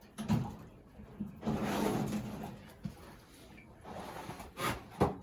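A knock, then a sliding scrape about a second and a half in, and two more sharp knocks near the end: hard objects being handled, shifted and set down.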